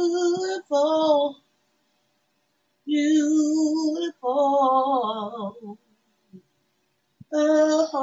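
A woman singing without accompaniment, in short phrases of held notes separated by silent pauses of a second or more.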